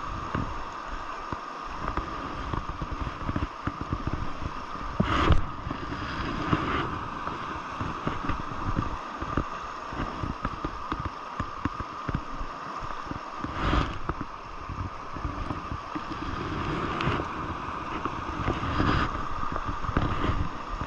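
Fast river water rushing over rocks in a shallow riffle, a steady hiss, with wind buffeting the microphone in gusts. A few brief thumps stand out, the loudest about five seconds in and another near fourteen seconds.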